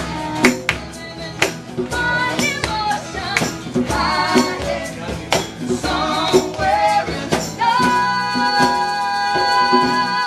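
Live acoustic cover played on acoustic guitars and violin, with singing over a steady beat of sharp percussive strokes about twice a second. Near the end one long note is held with vibrato.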